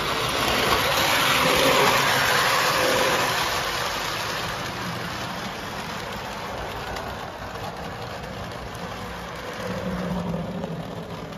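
Lionel O-gauge model freight train running on three-rail track: a steady rumble of metal wheels and motor that swells over the first two seconds as the locomotive passes close, then settles as the cars and caboose roll by.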